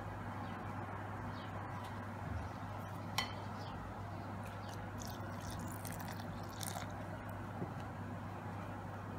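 Water poured into a well of flour in a glass mixing bowl, splashing lightly, with a single sharp clink about three seconds in. A steady low hum runs underneath.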